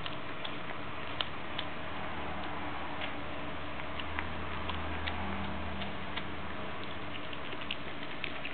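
Dog gnawing a knotted rawhide bone: irregular sharp clicks of teeth on the hard rawhide, a few a second, over a steady hiss.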